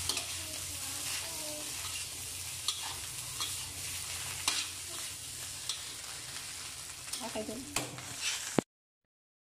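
Egg fried rice sizzling in a stainless steel wok while a metal spatula stirs and scrapes it, with scattered sharp clicks of the spatula against the pan. The sound cuts off abruptly near the end.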